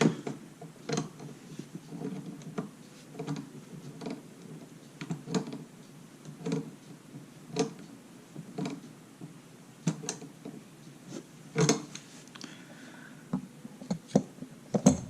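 Compression nut on a water-line fitting being threaded on by hand: light, irregular metal clicks and taps, about one a second, with a couple of louder knocks late on.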